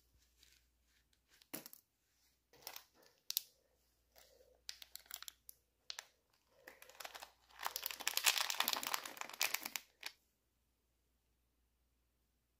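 Small clear plastic bag crinkling as it is handled. It comes in scattered short bursts at first, then a denser, louder stretch of crinkling that stops abruptly near the end.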